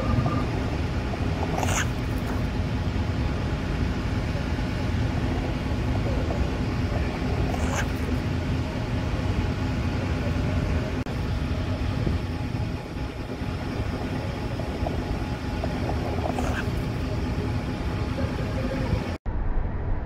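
Steady low outdoor rumble, with three brief sharp sounds spaced through it.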